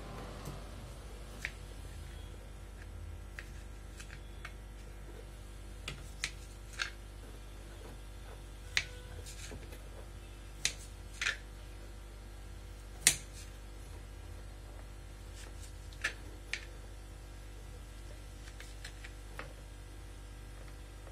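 Kitchen knife knocking on a plastic cutting board while plums are sliced into pieces: a dozen or so sharp, separate clicks, irregularly spaced a second or more apart, over a faint steady hum.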